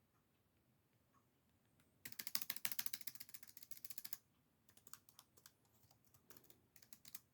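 Faint typing on a computer keyboard: a quick run of keystrokes lasting about two seconds, then a few scattered key presses.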